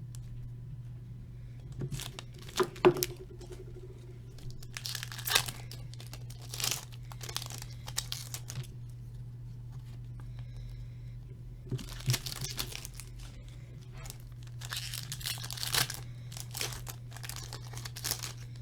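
Hockey card packs being torn open by hand: repeated bursts of wrapper tearing and crinkling, with a steady low hum underneath.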